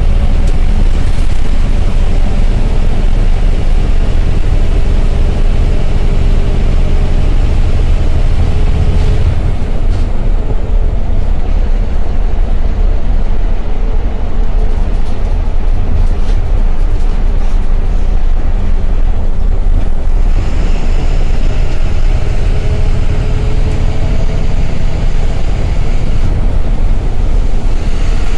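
Inside the cabin of a moving Ashok Leyland GSRTC bus: its diesel engine runs loud and steady along with road noise, and the engine note drifts slightly up and down.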